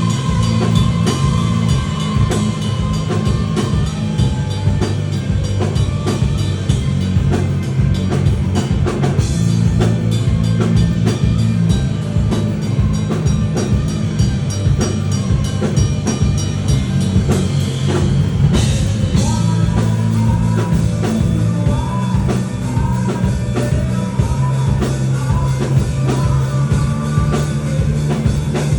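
Live rock band playing: a full drum kit keeps a busy, steady beat under guitars and bass. About two-thirds of the way through, a crash lands and a short melodic phrase starts repeating over the groove.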